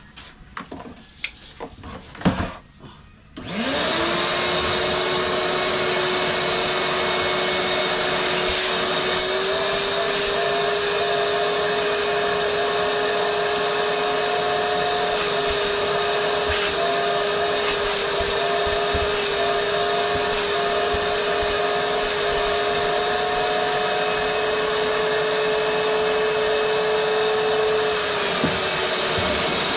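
A few clicks and knocks of handling, then a vacuum cleaner switches on about three and a half seconds in. Its motor whine rises quickly to a steady pitch and runs on as it vacuums van seat upholstery. The whine dips briefly in pitch near the end.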